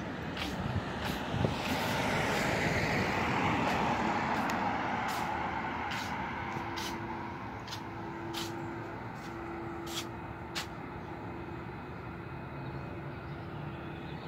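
Road traffic: a motor vehicle passes, its sound swelling over the first few seconds and fading away. Scattered sharp clicks run throughout, and a faint steady hum comes in during the later part.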